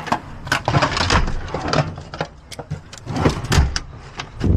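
Irregular clicks, knocks and low thuds of a vehicle door and handled gear.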